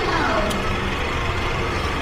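Background music over a steady low rumble, with a single click about half a second in.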